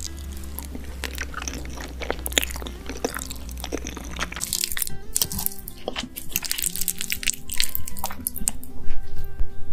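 Close-miked eating of baked lasagna: chewing, wet mouth sounds and the clicks of a spoon and then a fork in the dish, over soft background music. A low hum under the first half drops away about halfway through.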